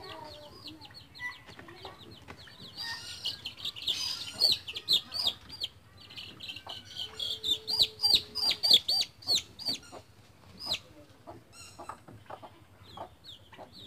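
Chicks of native chickens peeping, with runs of quick, high, falling peeps, loudest in the middle stretch as a chick is caught from the brooder. Scattered knocks from handling in the brooder come in between.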